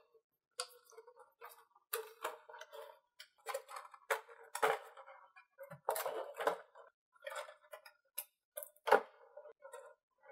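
Stiff clear plastic blister trays being handled and set down on a table: irregular crinkles, clicks and taps of the plastic.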